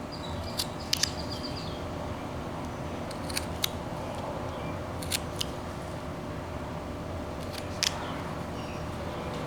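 Carving knife slicing into wood: short, sharp snicks at irregular intervals, a few seconds apart and sometimes in pairs, over a steady low hum.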